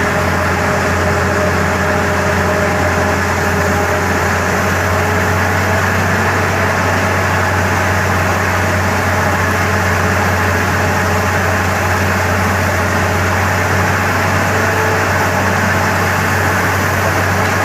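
Borewell drilling rig running steadily: a loud, even engine drone with a deep hum and a hiss over it, unchanging throughout.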